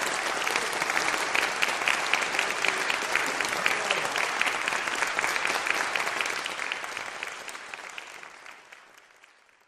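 Audience applauding: dense, steady clapping that fades away over the last few seconds.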